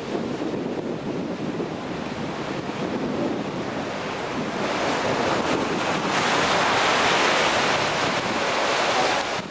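Heavy storm-swell surf crashing against a seawall, a continuous churning rush of breaking water with wind buffeting the microphone. It grows louder and fuller about six seconds in.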